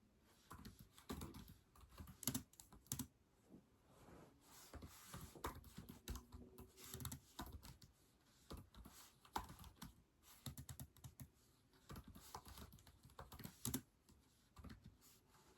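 Quiet typing on a keyboard: irregular runs of key clicks with short pauses between them.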